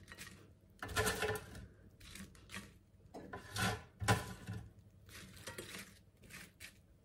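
Kitchen tongs with silicone tips picking crisp air-fried fries out of the airfryer basket and dropping them onto a plate: irregular light clatters and taps, the loudest about a second in and again around four seconds in.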